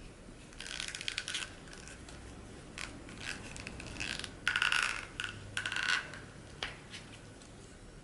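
Plastic housing and small metal parts of an Aqualung Legend Glacia regulator second stage clicking, rattling and scraping as it is taken apart by hand, in several short bursts, the loudest about halfway through.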